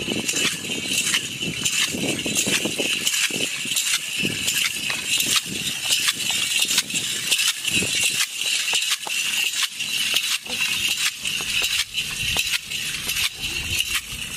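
Bells and jingles on a decorated camel's harness clinking over and over as it prances.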